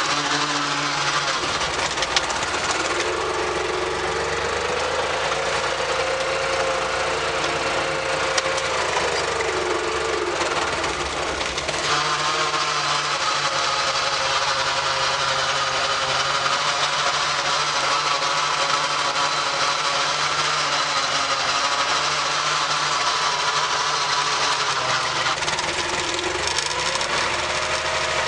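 Foton 254 tractor's diesel engine running steadily, its sound changing several times as the clutch pedal is worked: a higher whine rises in, holds for several seconds and drops away, then returns near the end. The owner suspects the transmission input shafts wobbling inside each other or in the throw-out bearing tube.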